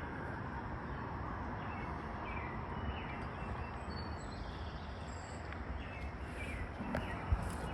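Steady outdoor background noise with a few faint, short bird chirps, and a couple of sharp knocks near the end.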